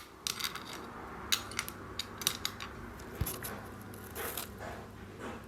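Light, irregular clicks and taps of metal rings being handled against one another and the tabletop, with one soft knock a little after three seconds.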